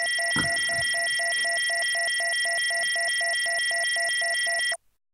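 Electronic tones: a steady high whine made of several pure tones, with another tone pulsing on and off about six times a second, ending in a sudden cut-off near the end.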